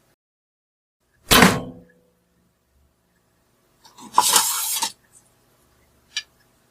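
Bow-and-arrow sound effects: a sharp impact about a second in that dies away quickly, then a rough swishing noise lasting about a second near the middle, and a short click near the end.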